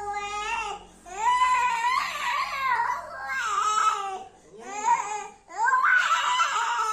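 Young boy crying hard in about four long, high wails, catching his breath between them.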